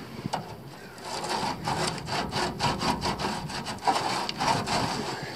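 Quick back-and-forth scraping on the rusty steel of a car's fuel tank around its strap clamp, about four strokes a second, starting about a second in, as the rust is worked off to find the hole that is leaking petrol.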